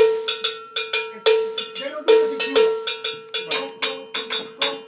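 Percussion ensemble playing an Afro-Cuban rhythm: rapid strokes on a ringing cowbell over drums.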